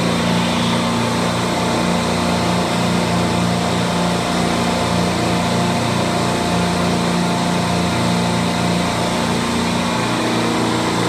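A 14-compressor R404A refrigeration rack of Copeland compressors running together: a steady mechanical hum with several low tones over a broad hiss.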